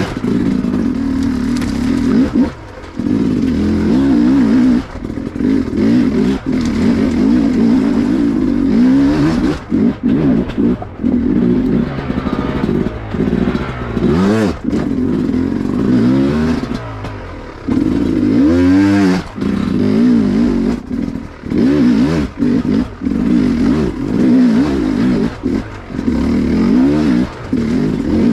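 Dirt bike engine revving up and down in short bursts while climbing a steep rocky trail, with repeated brief throttle-offs that drop the sound for a moment. Occasional knocks and clatter come from the bike working over rocks.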